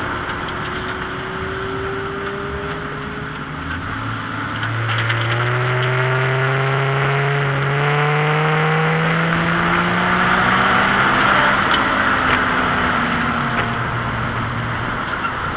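BMW 528e's inline-six engine heard from inside the stripped race-car cabin, pulling gently so its pitch climbs slowly for several seconds, then easing off and dropping back.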